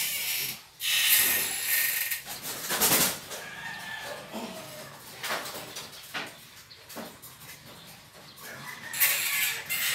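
Domestic fowl calling, with a few sharp knocks and two bursts of rustling noise, one about a second in and one near the end.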